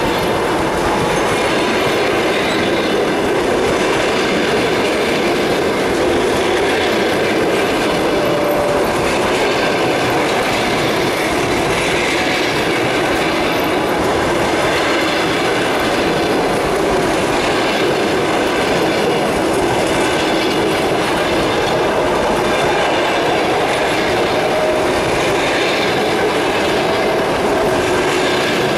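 Passenger coaches of an express train rolling past at speed: a steady, loud rushing rumble of wheels on rail, with a few faint, short, squealing tones from the wheels here and there.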